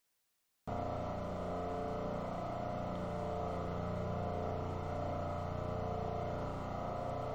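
Steady mechanical hum with several unchanging tones in it, cutting in abruptly a moment in after dead silence; a sharp click at the very end.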